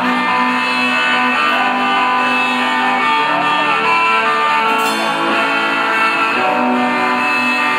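Rock band playing live, led by electric guitars picking out sustained notes and chords, steady and loud.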